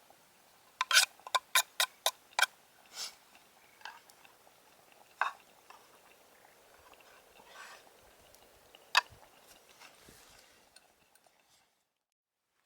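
Sharp clicks and taps of a spoon against a German M31 mess tin while eating: a quick run of about six in the first couple of seconds, then a few single clicks. The sound cuts off suddenly near the end.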